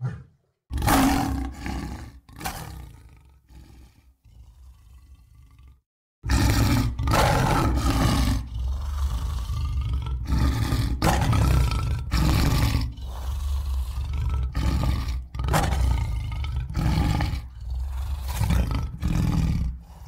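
Big-cat roar sound effects voicing saber-toothed tigers. One roar trails off over several seconds, then after a brief silence comes a long string of roars one after another.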